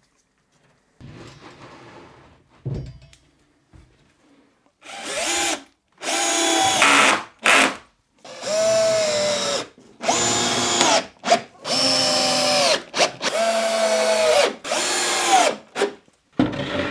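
Cordless drill-driver running in a series of short bursts, about eight of them, as screws are driven up into the underside of the workbench top. Each run winds down in pitch as it stops.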